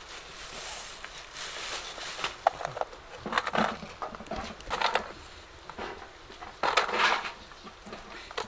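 Walnut kernels rustling and clicking against a metal tray as they are picked out by hand and threaded onto a string, in several short bursts; the longest comes about three quarters of the way through.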